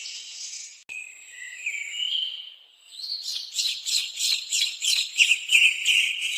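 Birds calling: a few whistled, gliding notes, then from about halfway a louder, rapid chatter of many high notes.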